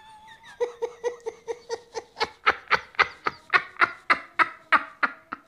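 A man laughing: a long run of short, rhythmic 'ha-ha' bursts, about four a second, starting about half a second in and stopping just before the end.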